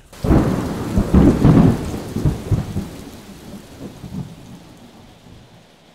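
Thunder in a rainstorm: a sudden loud rumble that rolls for a couple of seconds and then fades away, over a steady hiss of rain.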